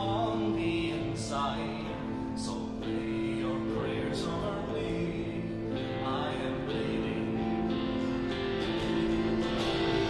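Live indie folk band music: long held droning chords under a guitar, with a wavering melody line at the start and again about six seconds in.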